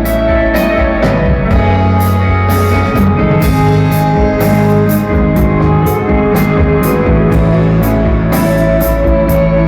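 Live psychedelic rock band playing loud, with guitars over a driving drum kit and frequent cymbal hits.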